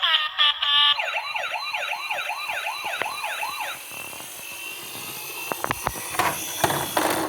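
Battery-powered toy emergency vehicle's electronic siren warbling quickly, about two and a half rises and falls a second, starting about a second in and stopping short after a few seconds. Light clicks and rattles follow near the end.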